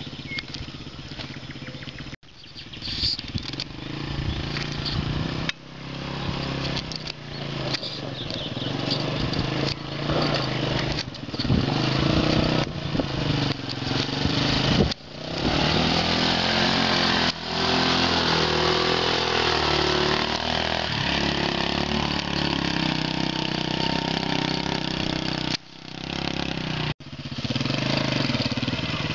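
Engine of a Leshy 2x2 two-wheel-drive motorcycle running and revving up and down as the bike works through deep mud. The sound cuts off abruptly a few times.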